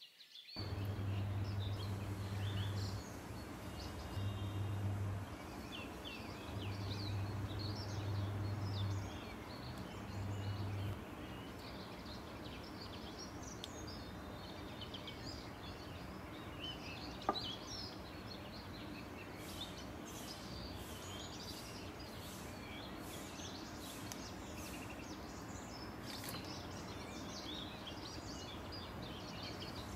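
Many small birds chirping. A low steady hum comes and goes four times in the first third and is the loudest sound, and a single sharp click falls about halfway through.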